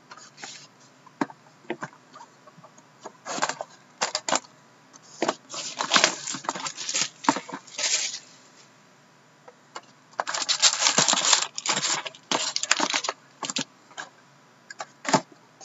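Plastic shrink wrap crinkling and tearing, with cardboard rubbing, as a sealed trading-card box is unwrapped and opened by hand. It comes in irregular bursts, busiest about two-thirds of the way through.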